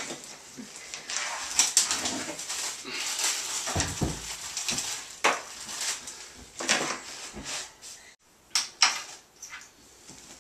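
Hand tools clinking and clattering in an open tool case as a small child rummages through it: irregular metal knocks and clicks, with a short lull near the end.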